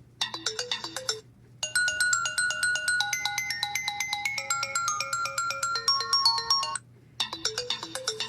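itel A80 preset ringtones playing: short electronic melodies over a quick, regular pulse, with a brief pause about a second in and another near the end where one tone gives way to the next.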